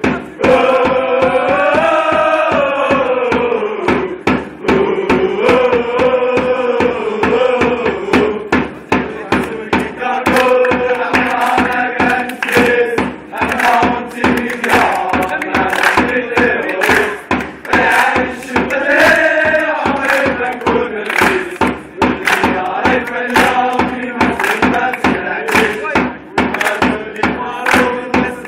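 Football ultras chanting a song together in unison, backed by a steady drum beat.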